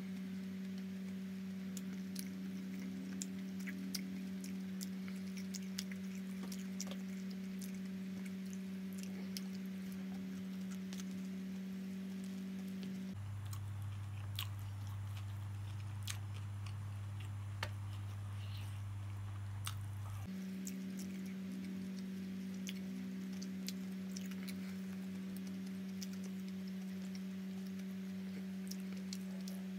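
A man chewing and biting roti John close to the microphone, with many small wet clicks and smacks. A steady low hum runs underneath; it drops lower for about seven seconds midway.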